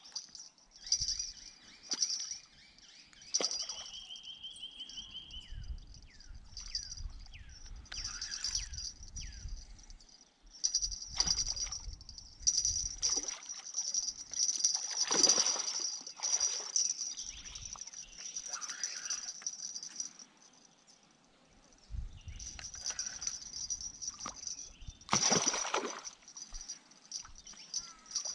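A hooked fish splashing and thrashing at the water's surface several times as it is played in, loudest about halfway through and again near the end. Behind it a steady high-pitched insect buzz and a few bird whistles near the start.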